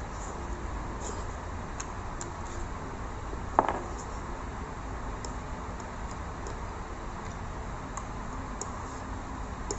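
A person eating with chopsticks: faint chewing clicks over a steady room hum, with one sharp click that rings briefly about three and a half seconds in.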